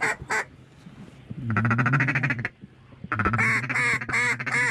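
Duck call blown in hen-mallard quacks: one drawn-out quack about a second and a half in, then a fast run of short quacks near the end.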